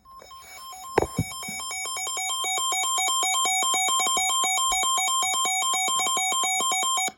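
Electronic two-tone alert sound that flips rapidly back and forth between a high and a low pitch, fading in over the first few seconds and then cutting off abruptly. It is the alert that opens an emergency alert broadcast. Two short knocks sound about a second in.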